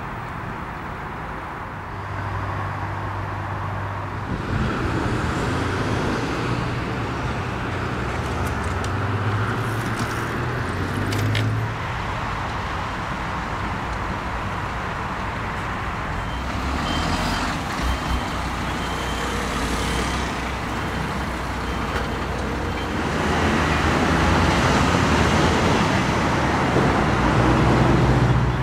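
Road traffic: cars and trucks passing on a busy road, with a low engine hum that swells and fades as vehicles go by.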